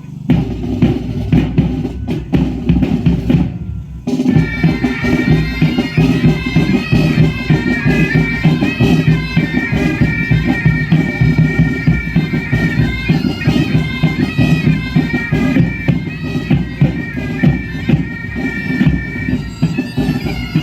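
Pipe band music: drums beating, joined about four seconds in by bagpipes playing a melody over their steady drone.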